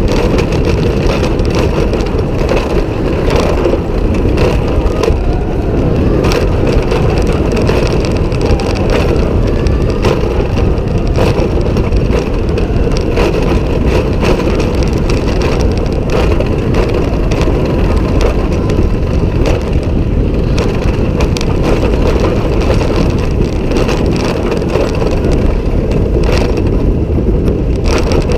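Loud, continuous rumble of a Vekoma Swinging Turns suspended coaster train running along its track, heard from on board, with a constant clatter of small knocks and wind buffeting the microphone.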